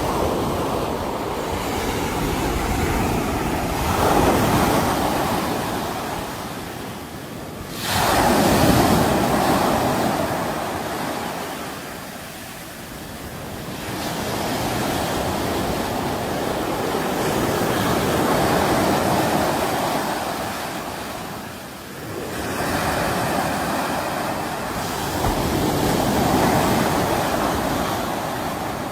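Sea waves breaking and washing up on a shore, in repeated swells that rise and ebb every several seconds, with a sharp surge of surf about eight seconds in.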